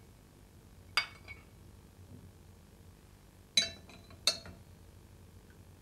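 Three short clinks of kitchenware, a utensil knocking against a glass and a pot, each with a brief high ring. The first comes about a second in, the other two close together near the end.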